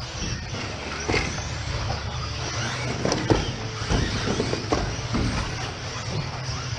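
Electric 1/10-scale RC cars racing on an indoor carpet track: a steady whir of motors and tyres, broken by several sharp knocks.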